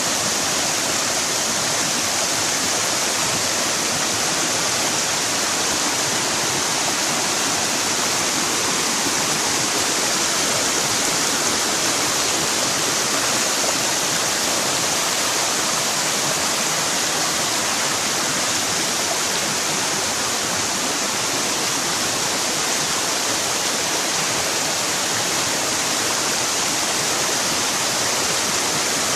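Mountain valley stream rushing over rocks: a steady, loud, unbroken wash of water.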